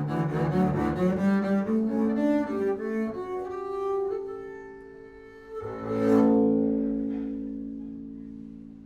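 Instrumental ending of a song led by an upright bass: quick notes for about three seconds, then sustained tones, and a final chord struck about five and a half seconds in that rings out and slowly fades.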